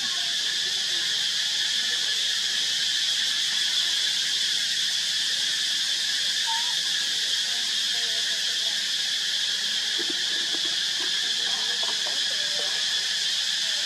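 Steady, high-pitched insect chorus that drones without a break, with a few faint brief sounds around ten to twelve seconds in.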